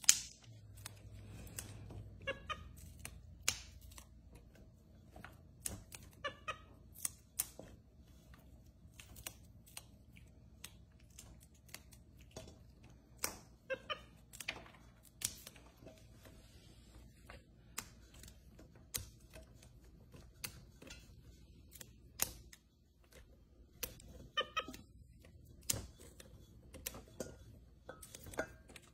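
Fresh green beans snapping and rustling in a stainless steel bowl as a capuchin monkey works through them: irregular sharp snaps. A few short squeaky calls from the monkey.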